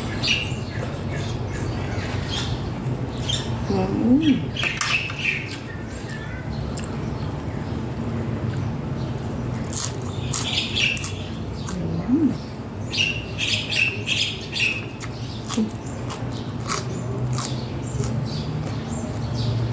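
Domestic chickens clucking and squawking in short bursts of calls, over scattered sharp clicks and a steady low hum.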